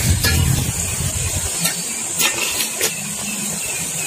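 Steel ladle stirring chicken in masala in an aluminium pot, clicking against the pot a few times, over a steady rushing background noise.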